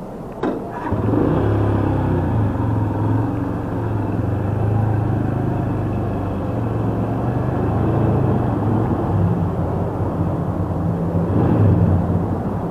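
Rusi Classic 250 motorcycle engine running as the bike rolls off at low speed, a steady low drone that comes up about a second in and swells again near the end. A short click comes just before it.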